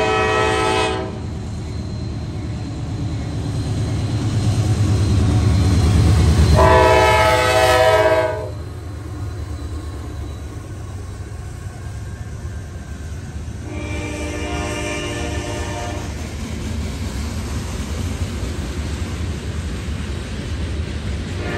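CSX GE diesel locomotives' multi-chime air horn sounding in blasts: one ending about a second in, another loud one about 7 seconds in, and a fainter one around 14 seconds in. The locomotives' engine rumble builds as they pass around 6 to 8 seconds in, then gives way to the steady rolling of freight cars going by.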